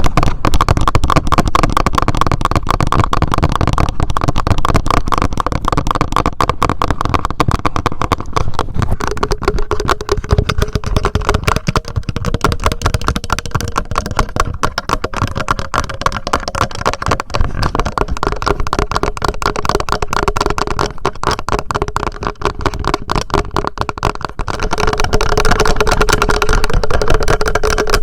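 Rapid, continuous fingertip tapping on a TASCAM handheld recorder, picked up at very close range by the recorder's own microphones, growing a little louder near the end.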